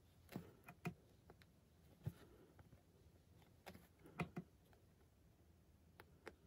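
Faint, irregular pops and taps of a cross-stitch needle piercing 18-count Aida fabric, with a few soft swishes of floss drawn through; the loudest clicks come about four seconds in.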